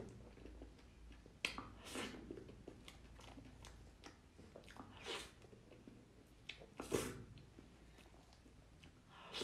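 Close-up mouth sounds of a person eating soft cream cake off a spoon, in a few separate short bursts with quiet between them, the loudest about seven seconds in.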